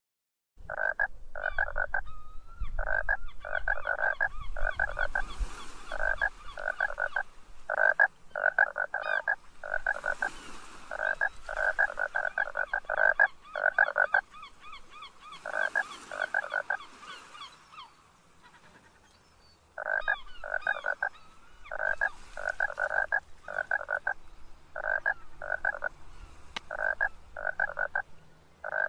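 Frogs croaking: loud pulsed croaks in quick runs of several, with fainter high chirping behind them. There is a short lull a little past halfway.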